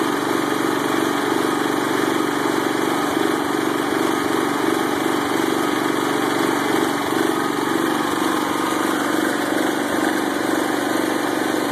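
Rebuilt Wisconsin engine of a Bolens 1250 garden tractor running steadily at an even speed.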